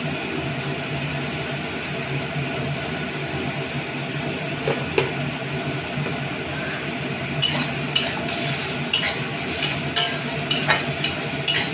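Chopped onions frying in oil in a metal kadai with a steady low sizzle. From about seven and a half seconds in, a metal spatula stirs and scrapes against the pan, giving a run of sharp clinks.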